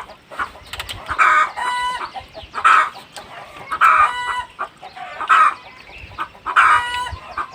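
Chickens clucking, a short pitched call repeating about every second and a half.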